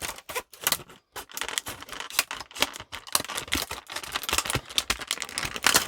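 Vampire scissors cutting into a tough plastic clamshell package: a rapid, irregular run of sharp snips, clicks and crackles from the hard plastic.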